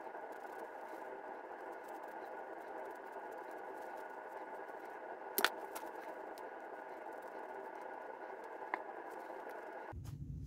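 Microfiber cloth rubbing over the Browning Buck Mark pistol's frame in gloved hands, faint scratching over a steady hum. A sharp click of the frame about halfway through and a lighter click near the end.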